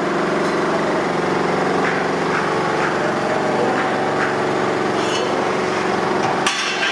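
A small engine or motor running steadily with an even, loud hum.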